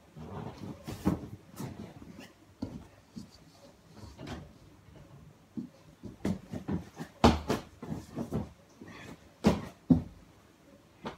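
Irregular thuds of feet and body landing on a floor during gymnastics moves, with softer footfalls between; the two heaviest landings come about seven and nine and a half seconds in.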